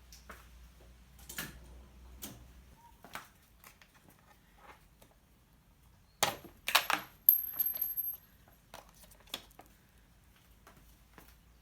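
Small metal parts and tools being handled: scattered light clicks and knocks, with a cluster of louder metallic clinks about six to eight seconds in, one of them briefly ringing.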